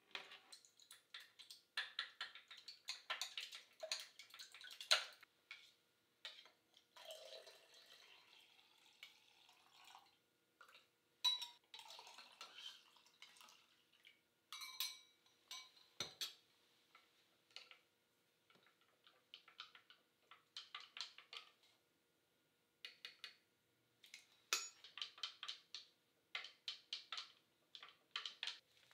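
Wooden chopsticks beating egg and dashi in a glass measuring jug, in runs of quick light ticks against the glass. Liquid is poured into the jug from a small pot partway through.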